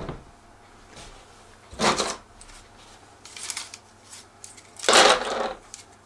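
Quick-disconnect prop guards for a DJI Phantom 2 being handled and fitted into a foam-lined hard case: three short rustling clatters, the loudest near the end.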